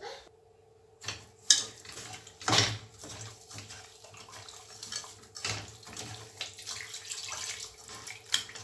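Starting about a second in, a hand mixes fish with oil and a wet spice paste in a stainless steel cooking pot: wet squelching and scraping, with a few louder clatters against the metal.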